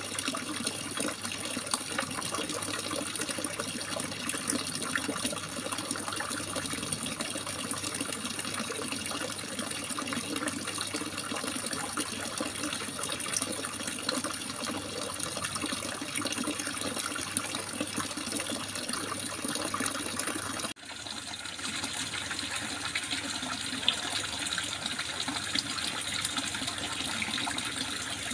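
Running water gurgling and splashing steadily. About 21 s in it cuts out for an instant and resumes with a slightly different tone.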